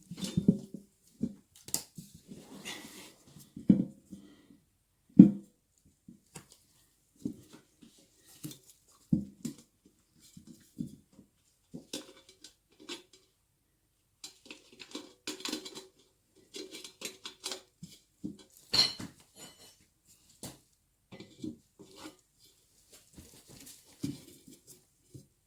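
Irregular knocks, thuds and metallic clinks of tools and parts being handled during a motorcycle tyre change, the loudest knock about five seconds in.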